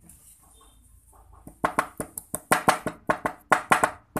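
Rapid sharp taps of a small hammer striking a thin metal strip on the bench, about a dozen strikes starting about a second and a half in.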